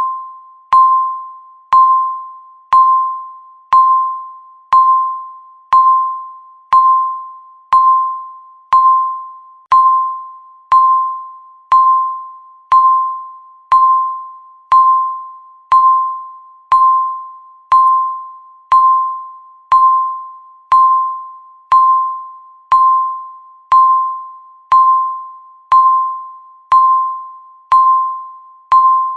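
Countdown timer beep sounding once a second: a single high electronic tone that strikes and quickly fades, repeating evenly.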